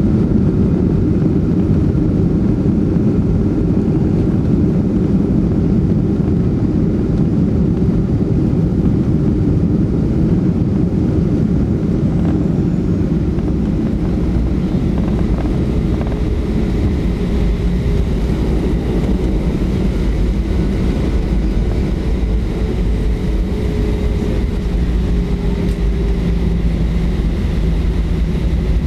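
Cabin noise of a Boeing 737-300 rolling on the ground after landing: a loud, steady rumble from its CFM56-3 engines and the wheels. A faint whine comes in during the second half and sinks slightly in pitch.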